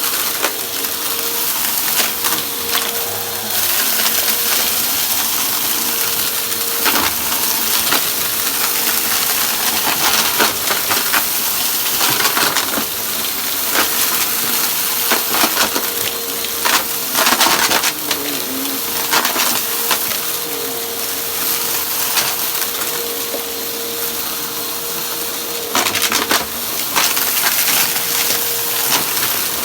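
Vacuum cleaner running with a steady hum while crunchy debris is sucked up, crackling and rattling irregularly throughout.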